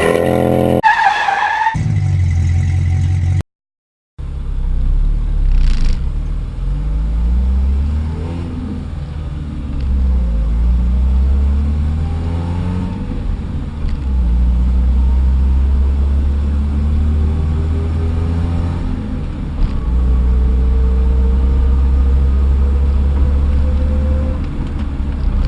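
Car being driven: steady engine and road rumble, the engine note rising and falling as it speeds up and slows. A short ringing tone sounds at the very start, and the sound drops out briefly at about three and a half seconds.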